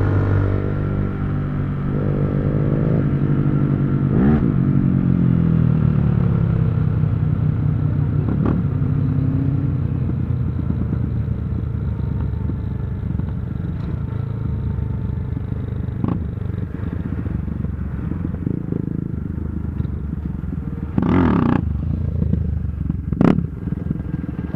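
Motorcycle engine running while riding, its note rising briefly and then falling a few seconds in as it eases off, then holding a steady low note. A few sharp clicks are heard, and a short loud burst about 21 seconds in.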